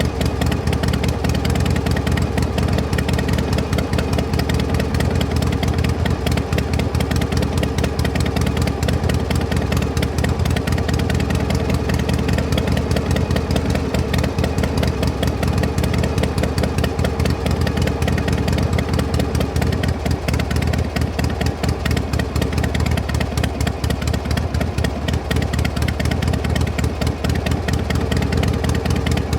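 Combustion engine idling steadily, its exhaust giving a rapid, even pulse.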